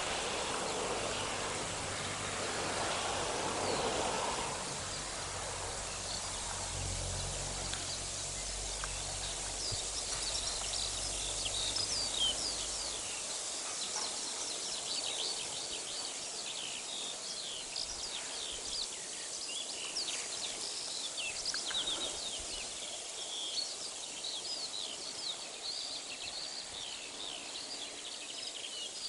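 Small songbirds chirping and singing in short high calls, thickest in the second half, over a steady outdoor hiss. A low rumble runs under the first part and stops a little before halfway.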